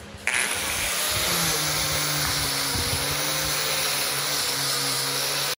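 Handheld angle grinder with a red abrasive disc running steadily against rusty steel, scouring rust off a planer part. It is a loud, even whine and hiss that comes in sharply just after the start.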